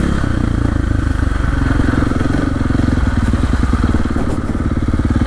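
2023 KTM 450 XC-F's single-cylinder four-stroke engine running at low revs while the dirt bike is ridden slowly, each firing pulse distinct. The revs drop right at the start.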